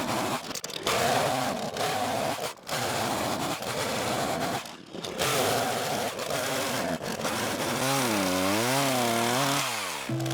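Small petrol engine of a hand-held power tool running at high revs, cutting out briefly a few times. Near the end its pitch wavers up and down, then drops away as the throttle comes off.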